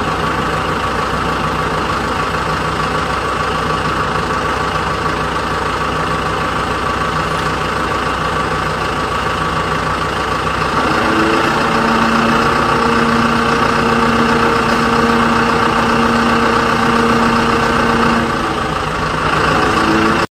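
Heavy engine running steadily at idle, a dubbed-in engine sound rather than anything from the hand-pushed plastic toys. About eleven seconds in, a pair of steady higher tones joins it and it gets slightly louder. The sound cuts off abruptly at the end.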